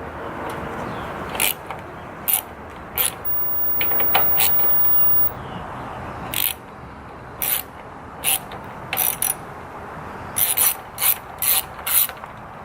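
Socket wrench ratchet clicking in short, separate strokes as the 10 mm bolts holding the carburetor and air cleaner housing to a Honda small engine are loosened.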